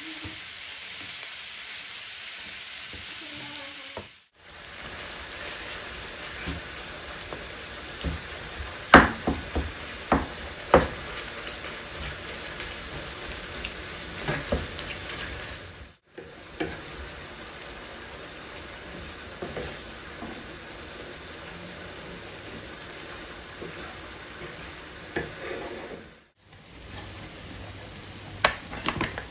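Lamb mince and onions sizzling in a frying pan while a wooden spatula stirs and breaks up the mince, with scattered knocks and scrapes of the spatula against the pan. The sizzle briefly cuts out three times.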